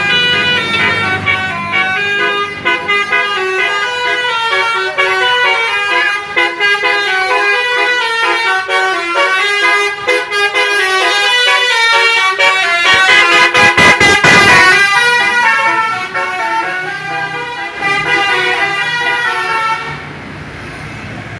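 Bus basuri telolet horn, a multi-trumpet musical air horn, playing a melody of stepped tones for about twenty seconds. A short rush of noise comes about two-thirds of the way through. The horn stops near the end.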